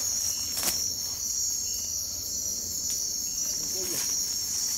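Steady high-pitched chorus of night insects, crickets among them, shrilling in the forest. Two sharp clicks cut in, about half a second in and again about three seconds in.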